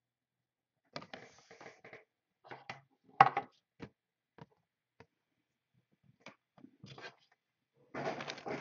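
Scattered clicks, taps and scrapes of trading cards and a cardboard card box being handled on a table, with the loudest a sharp knock a little after three seconds in and a busier patch of handling noise near the end.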